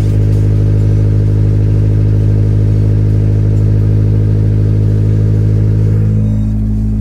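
The 1991 Acura Integra's engine running steadily with a low, even drone, its tone shifting slightly about six seconds in.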